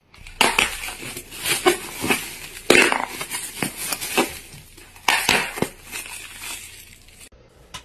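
Clear plastic wrapping being crinkled and crumpled by hand: a run of irregular, sharp crackles that stops abruptly near the end.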